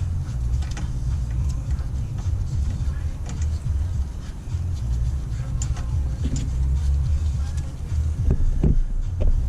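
Scattered light clicks and clinks of hand tools on brake hardware over a steady low rumble.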